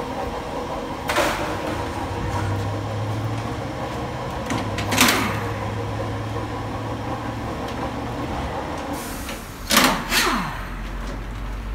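Pneumatic impact wrench run in short bursts as it spins bolts out of a steel motorcycle shipping crate: one burst about a second in, one about five seconds in, and two in quick succession near the end, each dying away in a falling whine. A steady low hum sits under the middle stretch.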